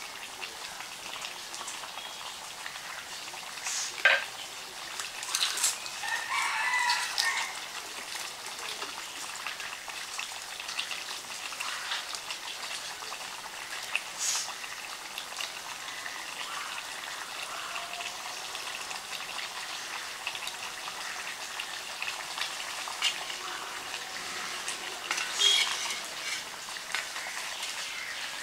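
Fish and taro curry simmering in an aluminium pot over a wood fire, a steady bubbling hiss full of small ticks. A sharp click sounds about four seconds in. Chickens call in the background, with one longer call after about five seconds and shorter ones later.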